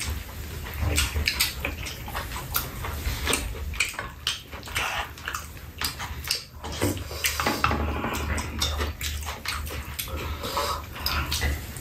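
Eating sounds: mouths chewing and smacking on fried rice, with spoons scraping and clicking against a frying pan many times.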